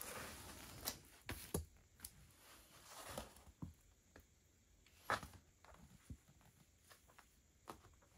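Faint rustling and a few scattered light taps and clicks as a diamond painting canvas with a plastic cover film is handled and touched; the loudest tap comes about five seconds in.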